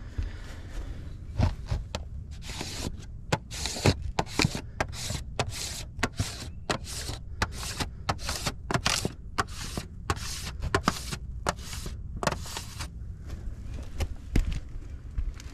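Chalk scraped in quick strokes across roof shingles, about two scratchy strokes a second for some ten seconds, then stopping.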